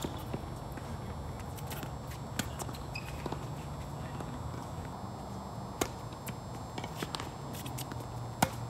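Tennis rally on a hard court: sharp racket hits and ball bounces every second or two, the loudest a close backhand hit near the end, over a steady low hum.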